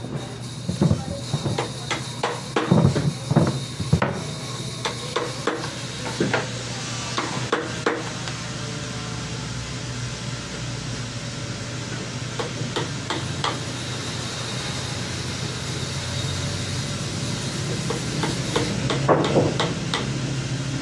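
Wooden knocks and taps as heavy timber pieces of a mitred table frame are shifted and fitted together, thick in the first several seconds and again near the end. A steady low hum runs underneath.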